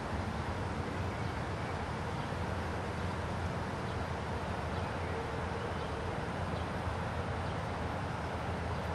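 Steady outdoor background noise: an even low rumble with a hiss over it, with no distinct calls or splashes.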